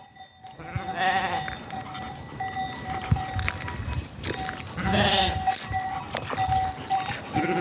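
Livestock bleating, with wavering calls about a second in and again around five seconds.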